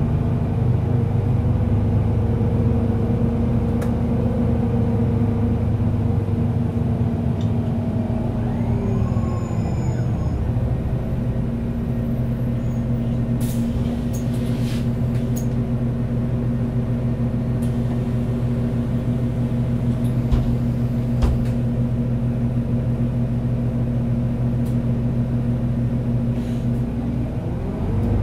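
Solaris Urbino 12 city bus's diesel engine running under way, its pitch falling about a third of the way in, holding steady for a long stretch, then climbing again near the end, with a few light clicks and rattles.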